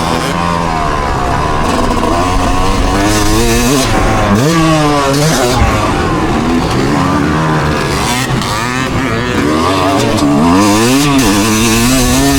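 A vehicle engine revved hard over and over, its pitch climbing and falling every second or two.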